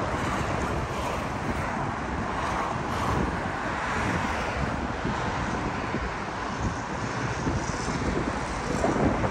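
Street ambience: steady traffic noise mixed with wind buffeting the microphone.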